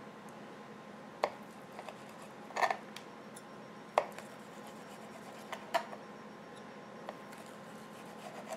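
Knife slicing through grilled chicken breast on a cutting board, the blade tapping sharply against the board about every second and a half, five or six times, over a faint steady hum.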